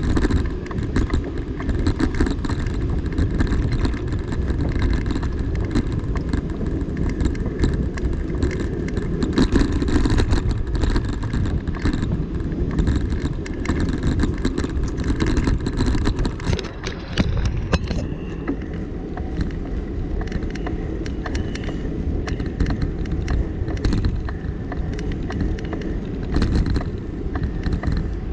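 Wind noise on the microphone and rolling road noise from riding along a paved path, easing a little after about 18 seconds.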